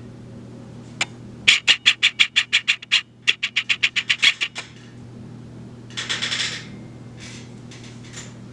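Two quick runs of sharp mechanical clicks, about eight a second, each lasting a second or so, then a short rattle a little later, over a steady low hum.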